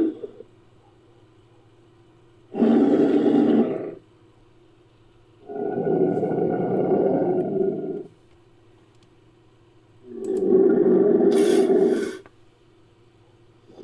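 Made-up creature roars for a Dakosaurus (prehistoric marine crocodile), mixed from Tylosaurus and crocodilian sound recordings. There are three deep roars: a short one about three seconds in, a longer one of about two and a half seconds, and another of about two seconds near the end, with quiet pauses between them.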